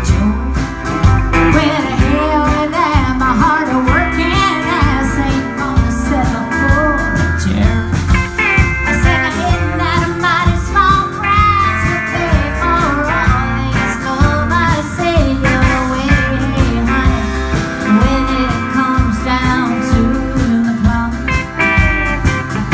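Live country-rock band playing a song: drums keeping a steady beat under bass and guitars, with a wavering lead melody on top.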